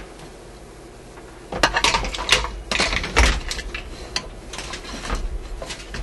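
Irregular clatter of small hard objects being moved about on a cluttered workbench, mixed with the bumps of the camera being handled. It starts about a second and a half in and runs as a quick series of clicks and knocks for about four seconds.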